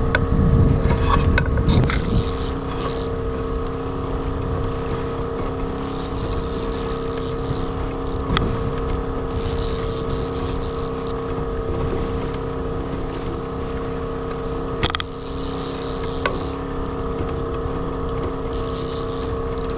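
Small outboard motor running at steady trolling speed, a constant hum, with water rushing along the hull of the inflatable boat. A couple of sharp knocks come through, about eight seconds in and again near fifteen seconds.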